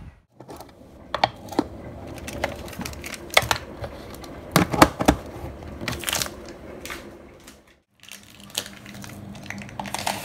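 Small objects being handled and rummaged through: irregular clicks, knocks and some crinkling of plastic packaging. Near the end the sound breaks off briefly, then a few lighter taps come over a steady low hum.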